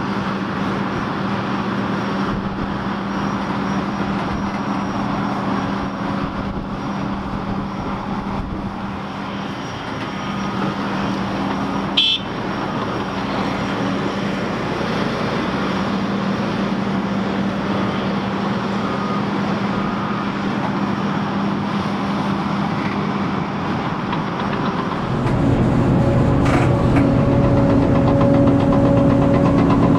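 Heavy diesel engines of a Volvo EC950F excavator and Volvo A60H articulated dump truck running steadily under load while the excavator digs and loads, with a single sharp clank about twelve seconds in. About 25 seconds in the sound jumps louder, with a deeper engine tone heard from close on the excavator itself.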